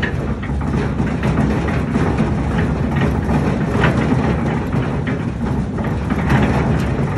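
Belt-driven electric concrete mixer running, its motor turning the pulleys through V-belts with a steady low rumble. Irregular clicks and knocks come through over the rumble.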